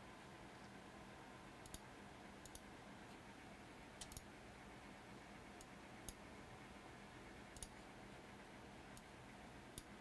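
Near silence: quiet room tone with a steady low hum, broken by about eight faint, scattered clicks of a computer mouse.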